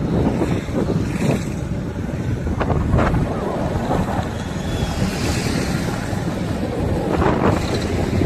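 Wind buffeting the microphone: a loud, steady rumble, with a couple of short clicks about two and a half and three seconds in.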